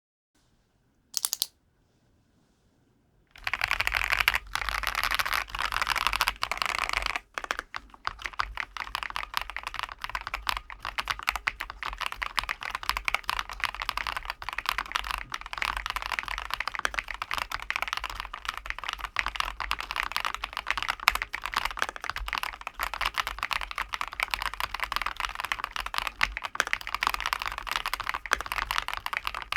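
ROYAL KLUDGE M87 mechanical keyboard being typed on fast and without a break, a dense stream of key clacks that starts about three seconds in after a short quiet broken by one brief burst.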